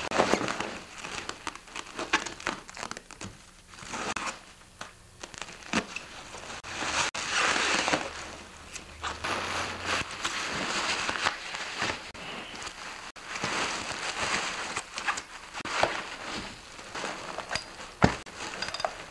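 Packing material crumpling and crinkling as a parcel is unwrapped, with irregular rustles, small knocks and a longer tearing-like rustle about seven seconds in.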